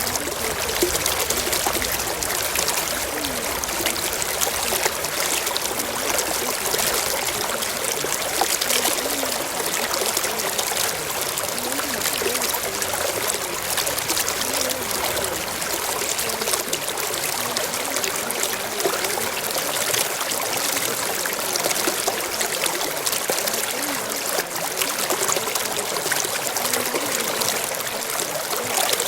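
Steady sound of running water, like a stream or a trickle, without a break.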